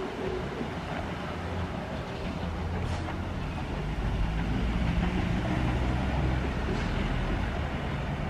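Low, steady rumble of a train drawing near, growing louder about four seconds in.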